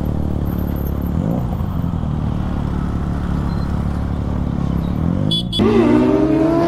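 Motorcycle engine running steadily in traffic. Near the end a louder engine note cuts in and slowly climbs in pitch.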